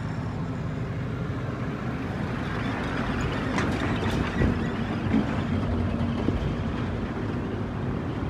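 Motorbike riding in traffic: steady engine and road noise, passing close alongside a large tanker truck.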